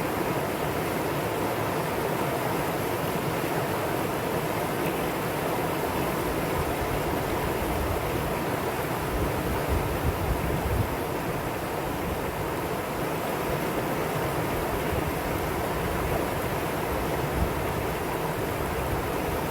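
Mountain valley stream rushing steadily over rocks, an even continuous water sound, with a few low rumbling swells about halfway through.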